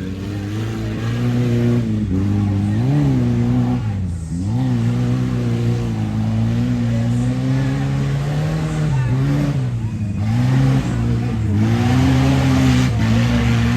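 Off-road race vehicle's engine running under throttle, its pitch dipping briefly as it eases off about three, four and ten seconds in, then rising again as it accelerates.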